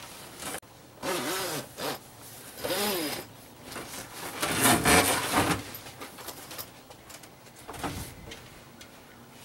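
Zippers on an old boat enclosure's clear vinyl (isinglass) panel are pulled open in a series of separate strokes. The stiff vinyl sheet rustles and flaps as it is lifted free, with the loudest rush about halfway through.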